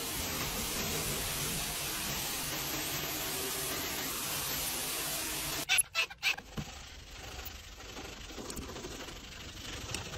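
Pressure washer wand spraying a steady jet of water onto a bare metal vehicle floor, a continuous hiss. About halfway through it stops abruptly, a few sharp knocks follow, and then quieter brush scrubbing on a soaped dashboard.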